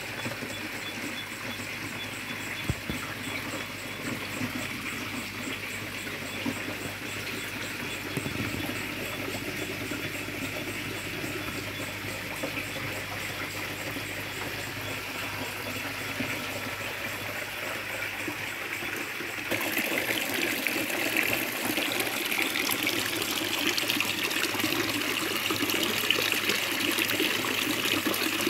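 Running water in a koi pond: a steady trickling rush that becomes louder and brighter about two-thirds of the way through.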